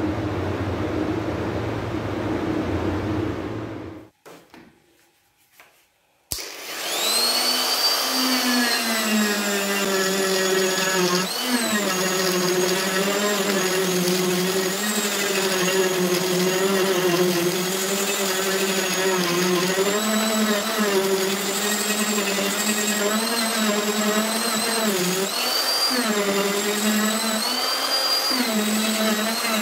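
A Tosan electric die grinder with a ball-shaped bit, running at high speed and carving the natural edge of an Albizia lebbeck wooden dish. It spins up about six seconds in, then holds a steady whine whose pitch dips each time the bit bites into the wood. Before it there is a few seconds of steady noisy hum, then a brief silence.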